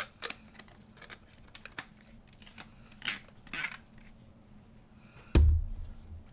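Small clicks and handling noises of plastic craft bottles and cups on a wooden tabletop, with two short scuffs about three seconds in and one heavy thump a little past five seconds in.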